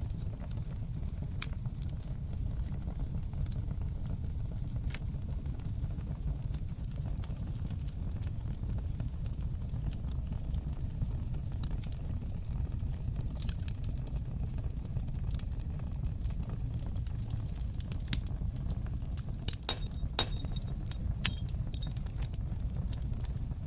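Fire burning in a fireplace: a steady low rumble of flames with scattered crackles and pops. The crackles come thicker near the end, with one sharp, louder pop among them.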